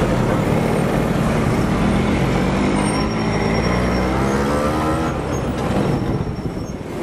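Street traffic: vehicle engines running close by, one of them revving up with a steadily rising pitch from about three to five seconds in.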